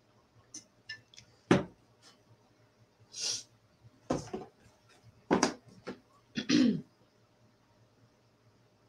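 Several short knocks and clicks, the sharpest about a second and a half in, as a drinking tumbler with a straw is set down and things are handled on a desk. Between them come a short breathy hiss and brief throat sounds.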